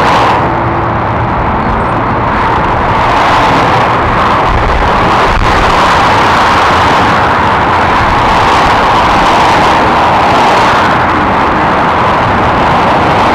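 Steady motorway traffic: the tyre and engine noise of cars, vans and lorries passing at speed, swelling and easing as each vehicle goes by.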